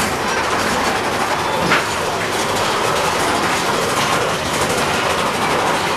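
Mine-train roller coaster cars rattling and clattering steadily along the track, with one sharp clack about two seconds in.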